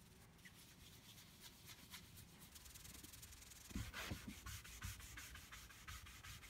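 Cloth and wax applicator pad rubbing paste wax into a bare wooden tabletop in quick repeated strokes. The rubbing is faint at first and gets louder about halfway through.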